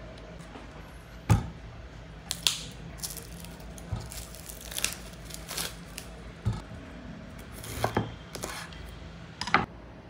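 Packaging and small objects being handled: a series of short, irregular tearing, crinkling rustles and light knocks over a faint low hum.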